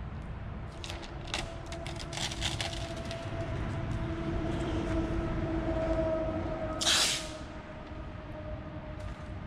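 Masking tape and masking paper being handled: crackling and clicks as the paper is pressed and the tape worked along its edge, then one loud short rip of tape about seven seconds in. A steady hum runs underneath from about a second in.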